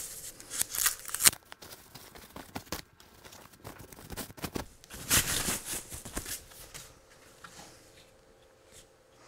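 Thin clear plastic packaging bag crinkling and rustling in irregular bursts as it is pulled off a monitor stand part, loudest about a second in and again about five seconds in.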